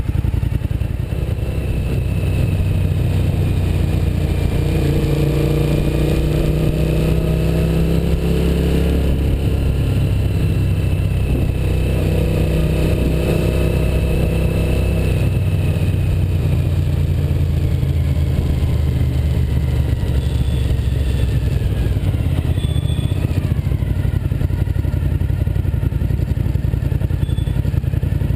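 Suzuki SV1000S's 90-degree V-twin engine running under way, heard from the rider's seat, its note rising twice as the bike accelerates.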